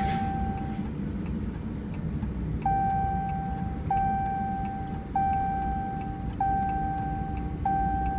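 A vehicle's seatbelt warning chime dinging about once every second and a quarter, each ding a single clear tone that holds for about a second, over the steady rumble of the engine and road inside the cab.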